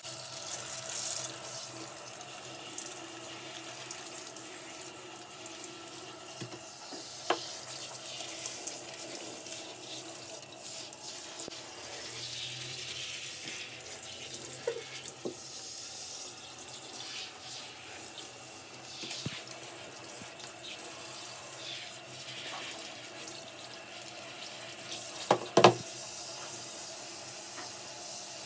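Water running steadily from a handheld shower head onto a West Highland white terrier in a shower tray. A few sharp knocks sound over it, the loudest a double knock near the end.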